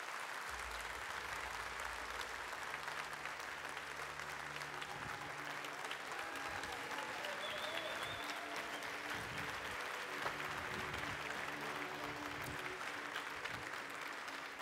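A large audience applauding steadily as a guest is welcomed onto the stage.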